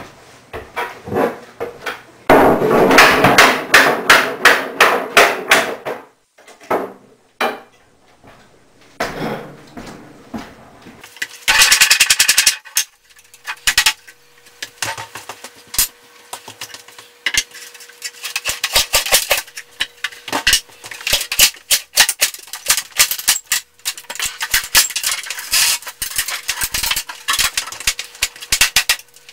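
Hammering and knocking on wooden kitchen wall cabinets as they are taken down off the wall, in quick runs of strikes with pauses between.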